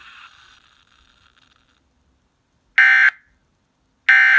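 Emergency Alert System end-of-message data bursts: two short, loud buzzing bursts of digital tones, about three seconds in and again near the end, after a faint radio hiss dies away. They mark the close of the alert.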